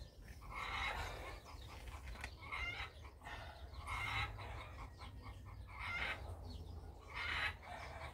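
Chickens clucking faintly, short calls recurring every second or two over a low steady rumble.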